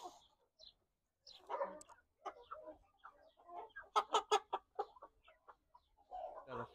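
Blue Columbian Brahma chickens clucking: scattered short clucks, with the loudest run of quick clucks about four seconds in.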